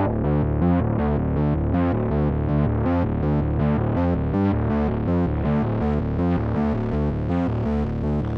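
Cinematic, anxious synthesizer bass run: rapid repeated notes at about four to five a second, pulsing steadily and stepping in pitch, with effects processing.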